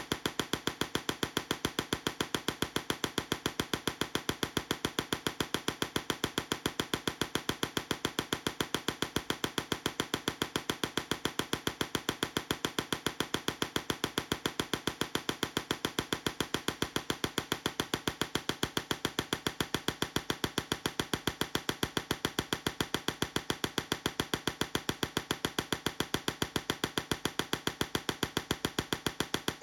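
Tesla coil sparks discharging in a rapid, evenly spaced train of sharp snapping cracks that keeps a steady rhythm and level throughout.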